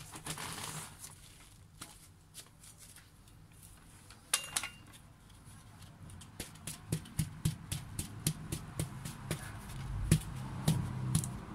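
Hands pressing and handling potting soil in a plastic plant pot: soft rustling of soil with a run of small clicks and taps. These come more often in the second half.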